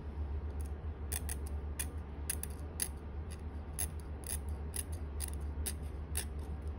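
Barnhart 5/6 universal curet scraping the front teeth of a plastic typodont in small overlapping working strokes. It makes a run of short, sharp clicks, a few a second, starting about a second in.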